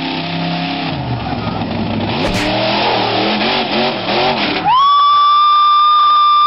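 Engine of a big-tyred mud truck running, then revving up and down as it climbs the obstacle. About five seconds in, a loud steady high-pitched tone cuts in over it for about two seconds; it is the loudest sound here.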